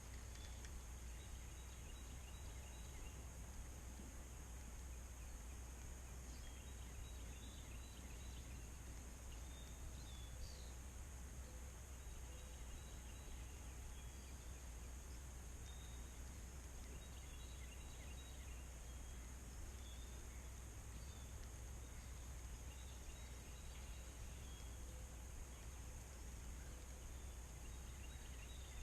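Quiet outdoor ambience: a steady low rumble and hiss, with faint, scattered bird chirps in the distance.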